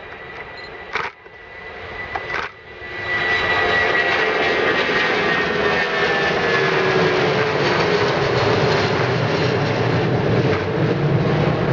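Boeing 757-300 jet engines at take-off thrust as the airliner climbs out overhead: a loud, steady jet roar that swells about three seconds in, with a whining tone that slowly falls in pitch. The sound is quieter and breaks off briefly twice in the first few seconds.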